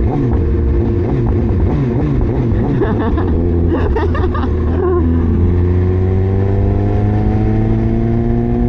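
Motorcycle engine running under way, with several engine tones rising and falling against each other for about the first five seconds, then one engine pulling steadily with its pitch climbing slowly.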